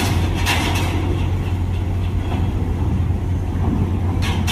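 Heavy diesel engine idling with a steady low hum, with two brief sharp noises about half a second in and near the end.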